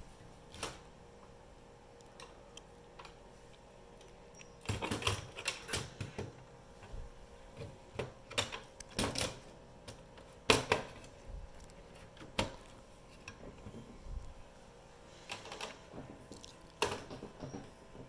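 Clicks and light metallic rattles from hands handling the sheet-metal daughter-card cage and the plastic memory-module latch inside a Dell PowerEdge 2850 server. They come in irregular clusters, with the sharpest click about ten seconds in.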